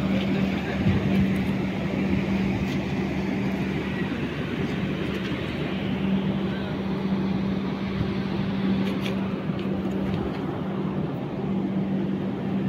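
Steady mechanical running hum with one constant low drone, an engine or motor idling without change in speed.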